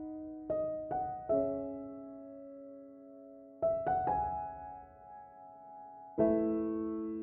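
Slow, gentle piano background music: soft chords and notes struck in small groups a few seconds apart, each left to ring and fade.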